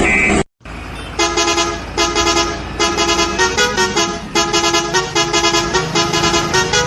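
A vehicle horn sounding a string of short honks, about a second apart, over a low engine rumble. A few of the honks shift in pitch.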